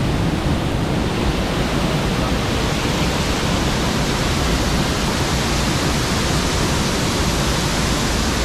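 Waterfall: a loud, steady rush of water falling hard.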